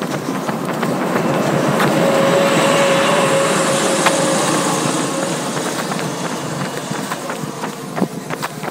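A school bus driving past: its engine and tyre noise swells to a peak about two to four seconds in, with a steady whine through the loudest part, then fades as the bus pulls away.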